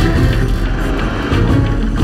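Soundtrack music from an animated racing film, mixed with vehicle sound effects.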